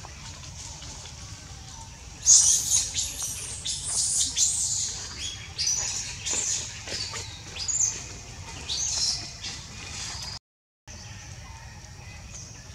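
A rapid series of shrill, high-pitched animal calls and chirps, starting about two seconds in and going on for several seconds, with a short break in the sound near the end.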